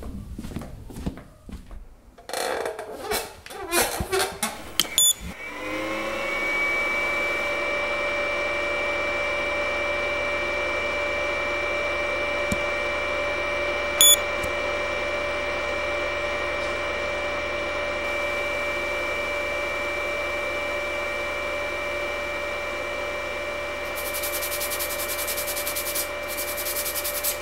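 Handling clicks and rustles, then a short electronic beep, after which a small motor spins up to a steady whine that runs on. About halfway through, an RC battery charger's button is pressed and the charger gives another short beep.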